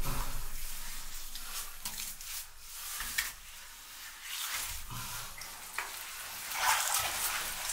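Gritty scraping and scuffing with scattered light knocks as a cut stone block is shifted and tipped over on the quarry's dusty floor, a little louder near the end.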